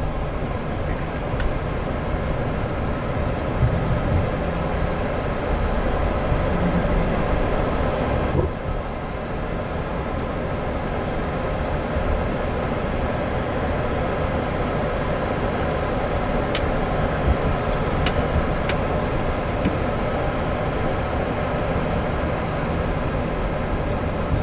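Steady cockpit noise of a Boeing 737-800 taxiing: its CFM56-7B engines running at idle with a low rumble and the hum of air conditioning. The level drops slightly about eight seconds in, and a few sharp clicks come near the end.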